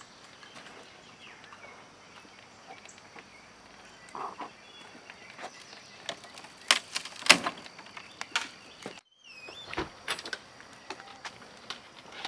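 Wood fire in a fire pit crackling, with scattered sharp pops and cracks that are loudest a little past the middle, over a steady high-pitched whine.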